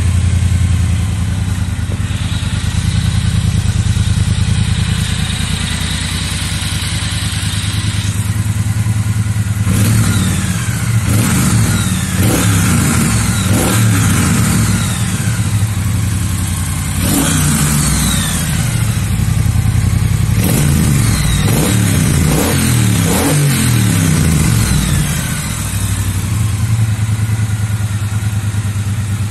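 2021 Triumph Bonneville T120's 1200 cc parallel-twin engine on its stock exhaust, idling in neutral. About ten seconds in it is revved repeatedly, the revs rising and falling up to around 4,000 rpm, then it settles back to a steady idle near the end.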